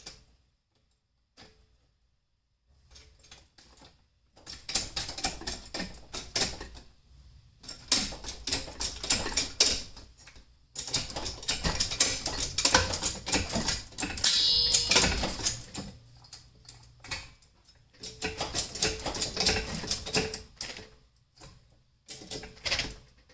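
Jack being worked to raise the Jeep's body off its frame: runs of rapid clicking and rattling strokes with short pauses between, and a brief squeak about fifteen seconds in.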